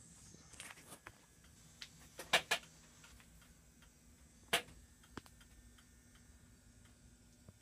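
A few scattered sharp clicks and taps over a faint background, the loudest two close together about two and a half seconds in and another about four and a half seconds in.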